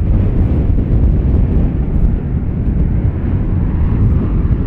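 Steady low rumble of an Airbus A350 on the ground being towed along a taxiway by a towbarless tug.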